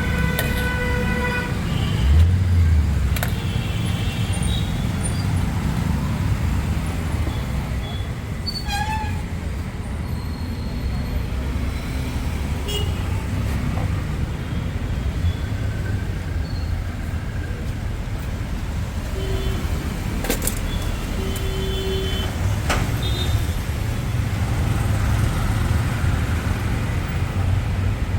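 Busy road traffic: a steady low rumble of passing engines with a few short horn toots.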